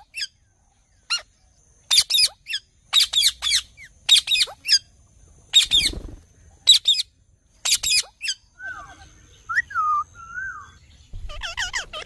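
Rose-ringed parakeets giving shrill, screeching calls in short bursts of one or two a second. About two-thirds of the way through they break into a stretch of softer, lower warbling chatter, then screech again near the end.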